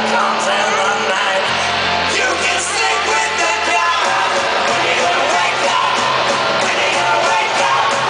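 A live rock band playing loud in an arena: electric guitar, bass and drums, with a singer's voice over them. It is heard from the audience.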